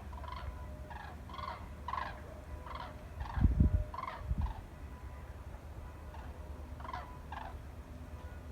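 A flock of large migrating birds calling as they fly over, a run of short honking calls about two a second that thins out near the end. Two low bumps on the microphone about halfway through are the loudest sounds.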